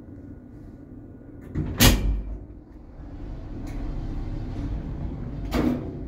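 Old 1986 passenger lift: a steady low hum, a heavy mechanical clunk about two seconds in, then the hum grows louder, with a second, smaller clunk near the end.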